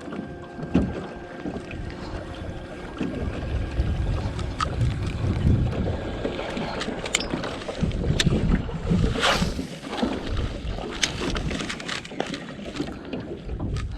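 Wind buffeting the microphone in uneven gusts, with scattered sharp clicks and knocks.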